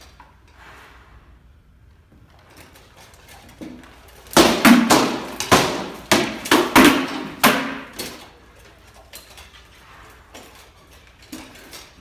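Sword blows in an armoured sparring bout landing on shields and armour: a rapid flurry of a dozen or so loud knocks and clacks over about four seconds, starting a few seconds in, then only faint scuffs and light taps.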